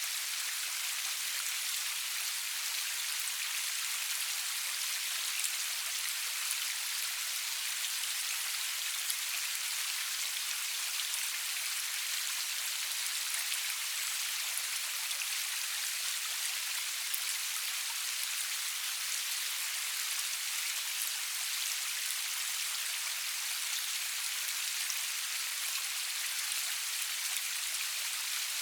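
Steady rain falling, an even hiss with fine, scattered drop ticks and no thunder.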